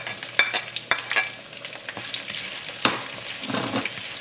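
Sliced onion hitting hot mustard oil and cumin seeds in a nonstick wok and sizzling as it is stirred with a spatula. A few sharp knocks come in the first second and one near the end, and the frying hiss fills out after about two seconds.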